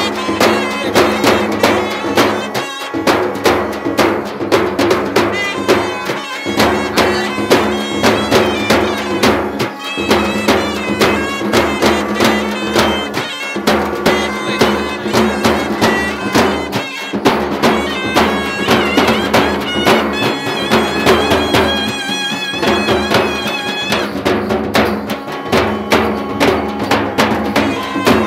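Loud traditional folk music: fast, dense drumming under a reedy wind instrument playing a wavering melody over a steady low drone.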